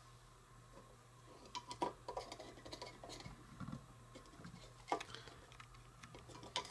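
A small spoon stirring in a miniature toy coffee cup: light, scattered clinks and scrapes, with a few sharper ticks about two seconds in and again near the end.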